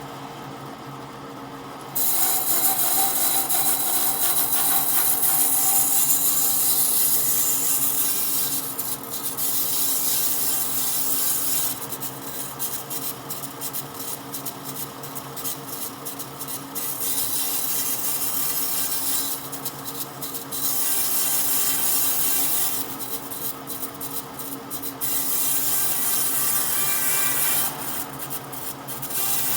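Woodworking power tool: its motor hums steadily throughout. From about two seconds in, a loud abrasive rasp of the tool working wood comes and goes in passes lasting a few seconds each.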